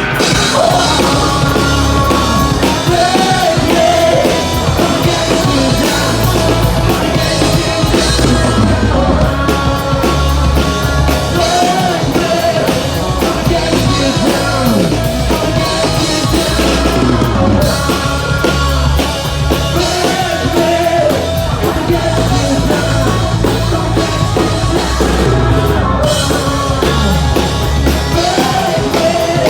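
Hard rock band playing live: electric guitars, bass guitar and drum kit, loud and steady, with a melodic phrase coming back about every eight seconds.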